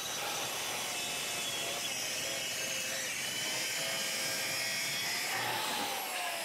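Festool plunge-cut track saw running on its guide rail and crosscutting the end of a thick solid cherry tabletop, a steady whining cut. Near the end the motor's pitch drops slightly.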